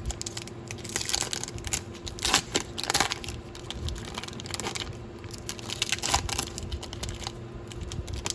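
A trading-card pack's foil wrapper being torn open and crinkled in the hands, with irregular crackling that comes in several louder clusters, over a faint steady hum.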